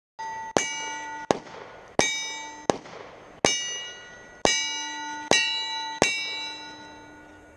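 Eight 9mm pistol shots from a Glock 19 about three-quarters of a second apart, each followed by a steel target ringing with clear tones that fade away. The fire runs steadily with no pause, so the threaded barrel is cycling without a malfunction.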